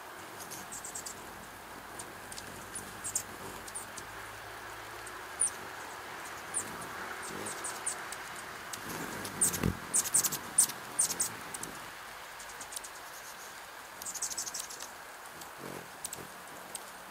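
Hummingbirds at a feeder giving short, very high chip calls over steady rain patter, with thick runs of chips about halfway through and again near the end.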